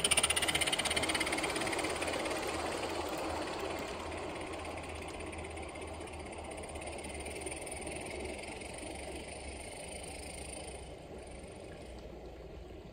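Live-steam garden-railway Forney locomotive, butane-fired, running with its train as it draws away, its running sound fading steadily over about ten seconds.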